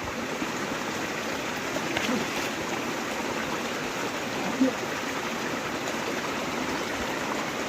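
Stream water flowing with a steady rush, with a couple of faint knocks.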